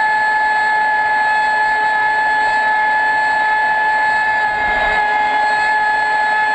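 Traxxas Spartan RC speedboat's brushless electric motor running at a constant high speed, a steady high whine that holds one pitch, over the rush of water against the hull, heard from onboard the boat.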